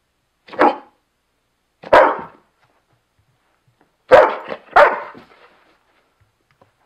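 Airedale Terrier barking four times: two single barks about a second and a half apart, then two more in quick succession.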